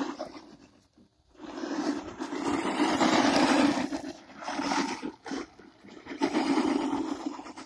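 Hart 20-volt RC truck's electric drive running in bursts as it is driven over loose dirt, with its tyres scrabbling. A long burst of about three seconds comes early, then a couple of short blips, then another burst near the end, with quiet gaps in between.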